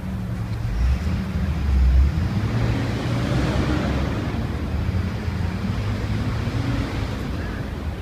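Outdoor city background of traffic and wind on the microphone: a steady low rumble, with a louder hiss that swells and fades around the middle, like a vehicle going by.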